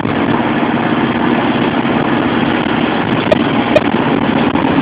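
Steady engine and road noise inside the cab of a Bürstner motorhome driving at motorway speed. Two short clicks come a little past three seconds in.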